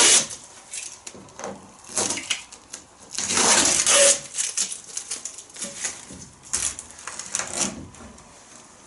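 Intermittent hand-work noises from taping and lifting out a classic Mini's hinged rear side window glass: scattered clicks and light knocks, with a loud ripping hiss of tape lasting about a second, roughly three and a half seconds in.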